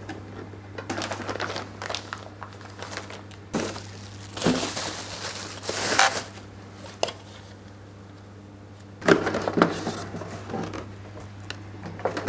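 Plastic bags and bubble wrap crinkling and rustling in bursts as packaging is handled and lifted out of a cardboard box, with a few light knocks, over a steady low hum.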